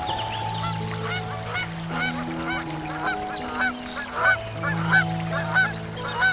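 An animal calling over and over in short, rising-then-falling calls, about two or three a second, over background music.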